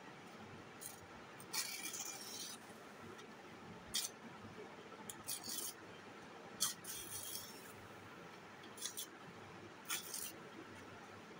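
Paper being torn and crinkled by hand: short, crisp ripping and rustling noises, about seven of them spread unevenly, the longest lasting about a second.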